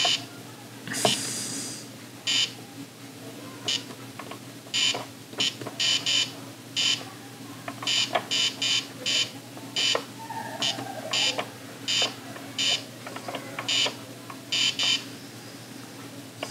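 Electronic beeps from an Ohio Art Etch A Sketch Animator as its drawing knobs are turned: short, identical beeps coming irregularly, sometimes in quick runs, over a steady low hum.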